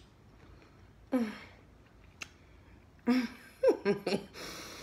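A woman's voice making short wordless sounds: a brief falling hum about a second in, then a few quick murmured sounds around three to four seconds, ending in a breathy exhale. A single faint click comes between them.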